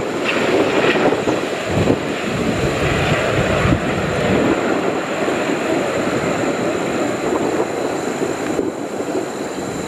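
Airbus A380's four Rolls-Royce Trent 970 engines heard from a distance on landing approach: a steady low roar.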